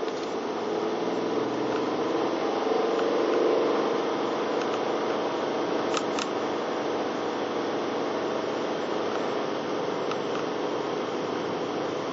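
A car's engine and tyre noise while driving: a steady hum that grows a little louder about three seconds in, with two short clicks close together about halfway through.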